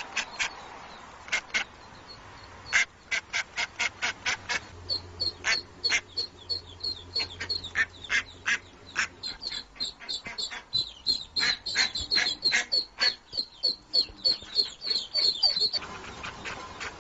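Female mallard quacking over and over in short, separate calls that come faster and closer together from about halfway through: a hen calling for her ducklings.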